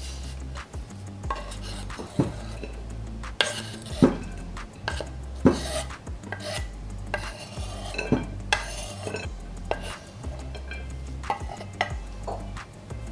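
Knife blade scraping sliced carrot matchsticks and chopped spring onion off a wooden cutting board onto a ceramic plate: an uneven run of scrapes and light knocks, with a few louder strokes.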